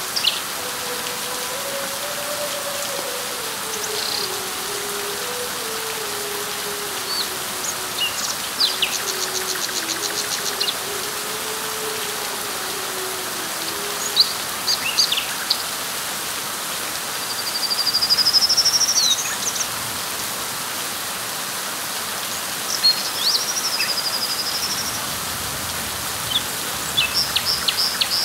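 Steady rain falling on leaves, with birds calling over it: scattered chirps, a rapid trill about nine seconds in, and rising whistled calls around eighteen and twenty-four seconds. A faint low wavering hum sits under the rain in the first half.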